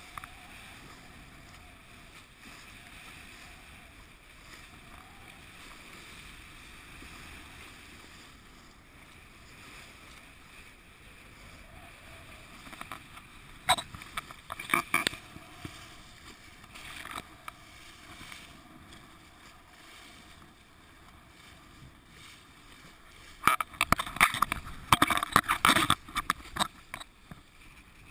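Water rushing along the hull of a Core Sound 17 sailboat under way in choppy water. Loud bursts of spray and waves slapping the bow come briefly about halfway through, then again for several seconds near the end.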